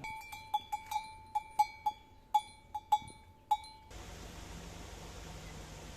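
A metal bell struck about a dozen times at uneven intervals, each strike ringing at the same clear pitch. It cuts off abruptly about four seconds in, leaving a steady hiss.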